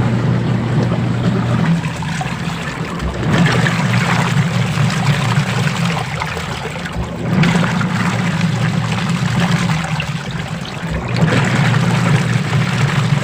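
Sharp single-tub washing machine running with water in the tub: the motor hums while the pulsator churns and sloshes the water, the sound swelling about every four seconds.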